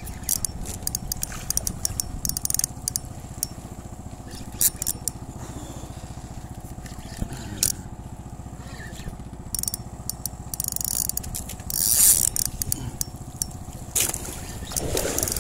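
Fishing reel being cranked in spells, its handle and line giving quick clicks and scrapes, over the steady low throb of the fishing boat's engine running. There is a louder rustling burst about twelve seconds in and another near the end.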